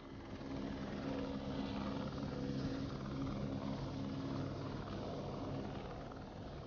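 Light helicopter flying low and slow, its rotor and turbine making a steady low throb with a hiss over it. It eases slightly in loudness near the end.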